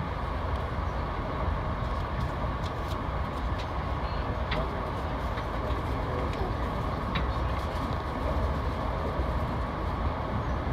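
Steady low rumble of a VIA Rail passenger train running at speed, heard from inside the coach: wheels on the rails and running gear, with a few faint clicks.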